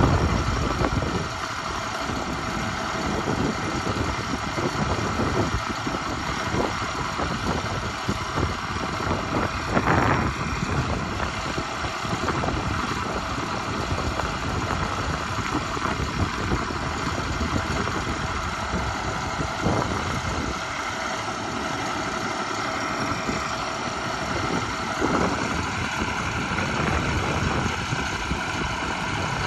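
Truck engine idling steadily, with a few brief knocks.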